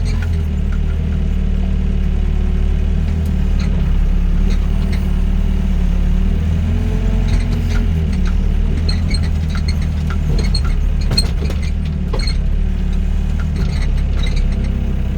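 Doosan DX55 mini excavator's diesel engine running steadily as the machine climbs a pile of earth, with scattered light clinks and clanks from the machine.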